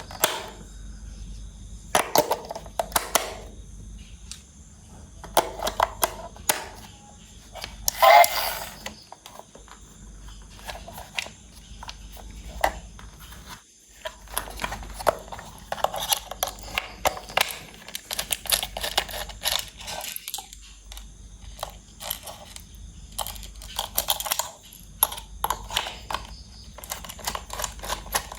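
Irregular clicks, taps and short rattles of small toy parts and packaging being handled during unboxing and assembly, with a louder, longer scrape about eight seconds in.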